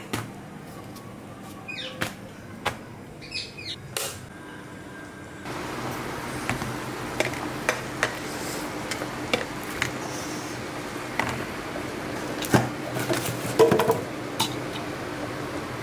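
Kitchen handling sounds: scattered light knocks and clicks as dough rolls are set into a small steamer pot, over a steady low hum that starts about five seconds in. A couple of short chirps early on.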